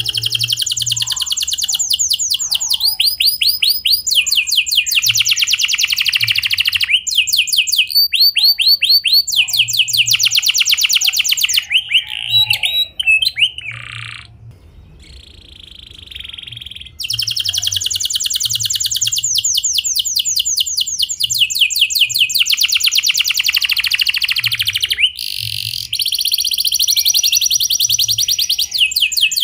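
Domestic canary singing long rolling trills: fast runs of repeated high notes, each run on its own pitch, one after another. There is a quieter stretch about halfway through.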